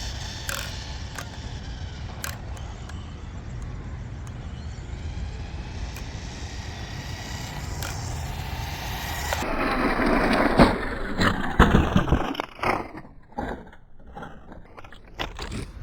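Brushed-motor 1/14-scale RC desert truck (JJRC Rigid C8805) driving, a steady rush of motor and tyres with a few small clicks. About ten seconds in it gets louder, with rough rushing bursts and sharp knocks and scrapes, then comes and goes in short bursts.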